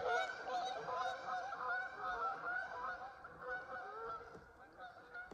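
A flock of geese honking, many calls overlapping, slowly growing fainter as the flock moves away.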